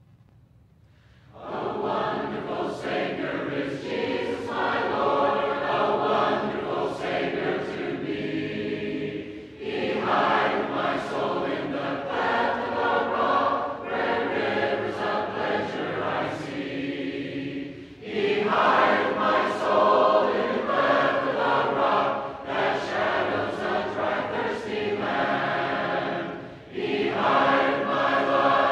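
A choir singing a hymn a cappella, in long phrases with short breaks between them, starting about a second and a half in.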